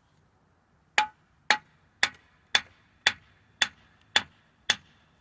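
Steady hammer blows on steel, about two a second for eight strikes starting a second in, each with a brief metallic ring: driving the bottom bolts out of a truck's rear leaf-spring suspension.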